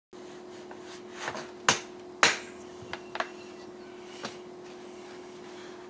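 Sharp knocks and clicks of hard plastic compost tumbler parts being handled and fitted together during assembly: two loud knocks close together, then a few lighter clicks, over a faint steady hum.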